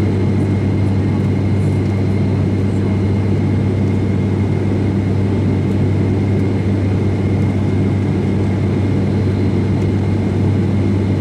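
ATR 72 turboprop engines and propellers heard from inside the passenger cabin in flight: a steady low drone with a faint high whine above it.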